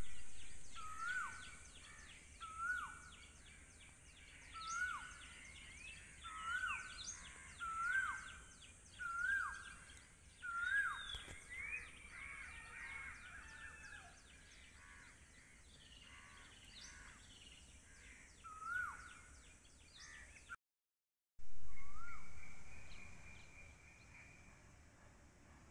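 Outdoor birdsong: one bird repeats a short whistled call about every second and a half, with other birds chirping around it over a steady high buzz. The sound drops out briefly about twenty seconds in, then resumes with a loud call that fades away.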